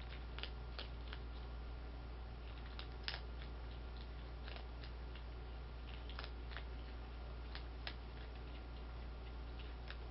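A striped skunk crunching dry cat food kibble from a bowl: irregular sharp crunches, one to three a second, the loudest about three seconds in, over a steady low hum.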